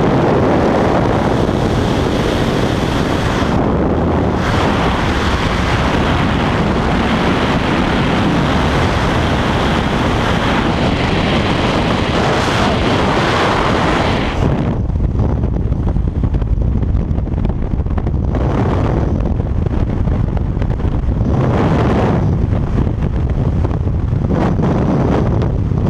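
Rushing slipstream and aircraft noise through the open jump door, then, about halfway through, a change to the low, buffeting wind of freefall on a helmet-mounted camera's microphone.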